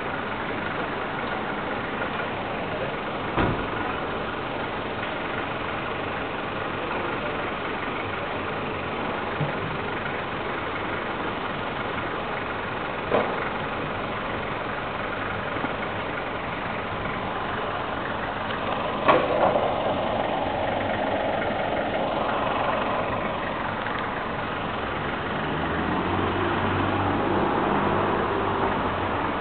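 Steady motor-vehicle engine and street traffic noise, broken by a few sharp knocks. A louder low engine sound swells in near the end.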